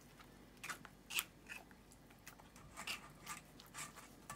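A small plastic spatula scraping and squishing wet oat pulp against a stainless steel mesh strainer, in a dozen or so short, irregular strokes starting under a second in: pressing the last liquid out of the pulp while coarse-straining homemade oat milk.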